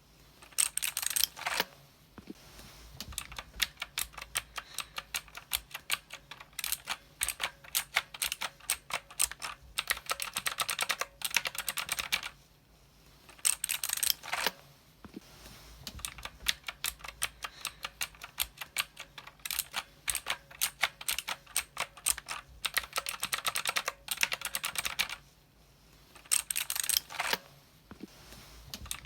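Typing on a mechanical keyboard: runs of sharp key clicks with a few brief pauses, and a quick dense burst of keystrokes now and then.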